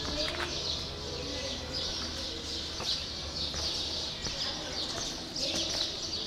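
A flock of small birds chirping steadily and densely, a continuous high twittering, with faint voices in the background.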